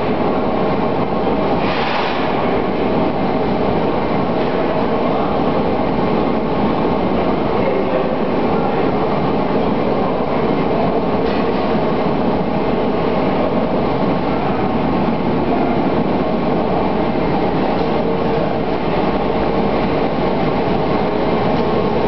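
Briquetting presses running steadily: a loud, continuous, dense mechanical clatter, with a short hiss about two seconds in.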